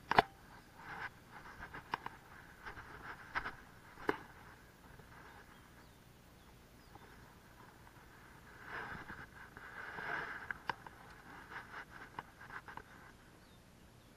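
Close handling noise of fishing tackle: a sharp click just after the start, then scattered light clicks and rustling, with a longer rustle about nine to ten seconds in, as a lure and a spinning rod and reel are handled.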